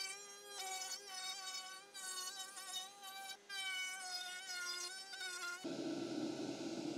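Router in a router table running with a high-pitched whine as an MDF board is fed past the bit, its pitch dipping slightly under the cut; the whine breaks off and resumes a few times. About a second and a half before the end it gives way to a steady rushing noise.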